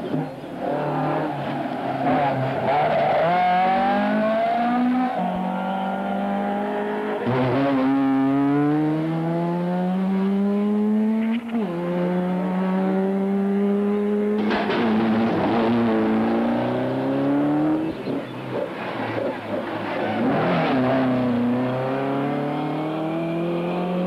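Ford Escort Mk2 rally cars accelerating hard on full power. The engine note climbs through the revs and drops back at each gear change, over and over.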